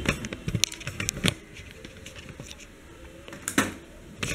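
A handful of sharp hard-plastic clicks and taps: several close together in the first second and a half, then two more near the end.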